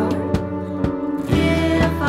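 A church worship band plays a song in a short instrumental passage between sung lines, with held chords and separate plucked notes.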